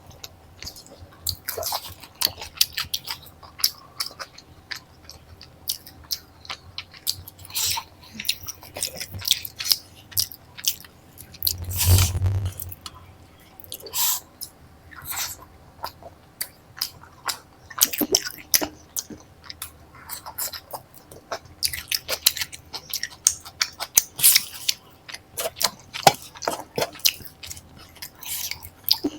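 Close-miked chewing: irregular wet clicks and smacks of a person eating paneer curry with flatbread. About twelve seconds in there is one louder, longer sound with a dull low thud in it.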